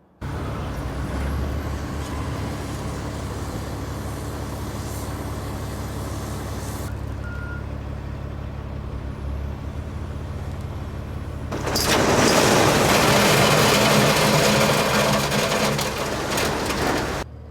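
A heavy truck's engine running steadily. About twelve seconds in, a much louder rushing noise comes in for about five seconds, then stops abruptly.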